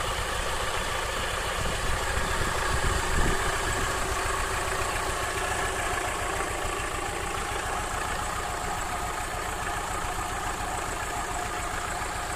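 Alfa Romeo 156 2.0 Twin Spark 16-valve four-cylinder engine idling evenly on petrol. No rattle from the cam variator or the timing gear can be heard.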